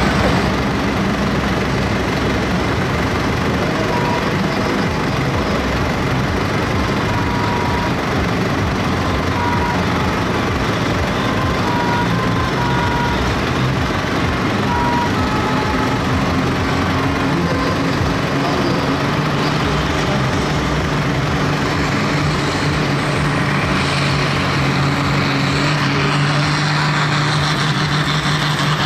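Diesel engine of a 5.5-tonne farm-based pulling tractor running hard and loud as it drags a weight-transfer sled. A deeper steady engine note strengthens about two thirds of the way through.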